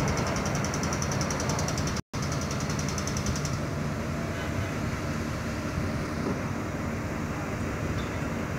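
Heavy diesel engines of a standing locomotive and a truck crane running steadily at idle. A high pulsing hiss over the engines stops about three and a half seconds in, and the sound cuts out for an instant about two seconds in.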